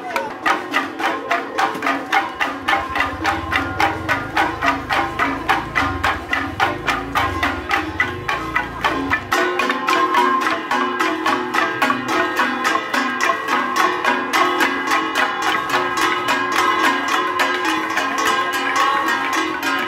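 Traditional Ifugao gong-and-drum music from a marching parade ensemble: struck gongs and drums beaten in a fast, even rhythm of about two to three strokes a second, with a metallic ringing between the strokes.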